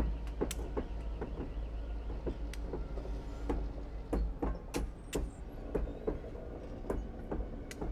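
Steam locomotive C&O 1309, a 2-6-6-2 Mallet, rolling slowly behind a diesel: irregular metallic clicks, clanks and short squeaks from its rods, wheels and rails over a steady low rumble.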